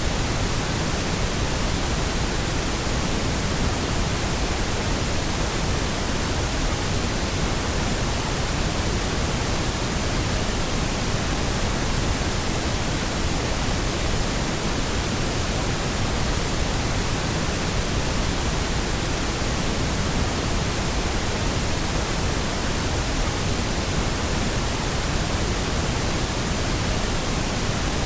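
Steady synthetic pink noise: an even, unchanging hiss spread across all pitches, with no tones or events.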